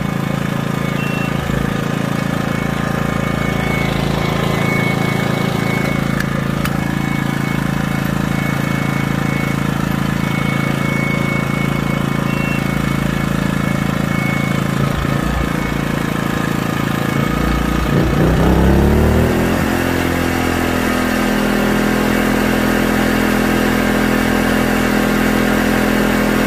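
EcoFlow Smart Generator's small engine running steadily. About eighteen seconds in it revs up to a higher, steady pitch, as an inverter generator does when a load comes on: here the power station has begun drawing about 400 watts to charge.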